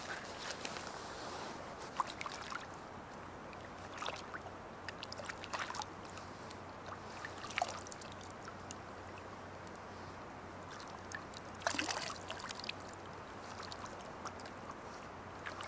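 Lake water splashing and trickling in short, scattered bursts as a hand dips into the shallow water at the shore, with a louder cluster of splashes about three-quarters of the way through.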